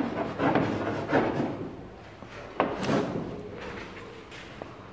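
Chalk tapping and scraping on a blackboard in a few separate short strokes as a word is written and then underlined.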